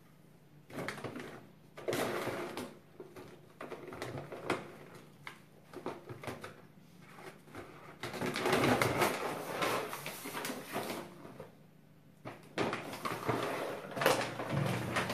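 Plastic bag of dry cat food rustling and crinkling in repeated bursts as a Siamese cat claws at it and pulls it down. The loudest stretch comes about eight seconds in, with more near the end as the cat drags the bag across the floor.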